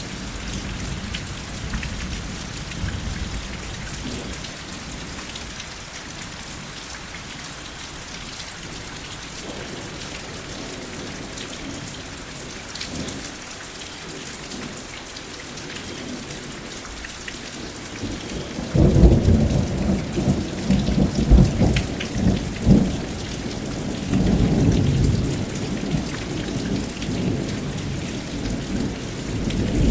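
Steady rain falling, with thunder rumbling in from a little over halfway through and coming in several loud swells.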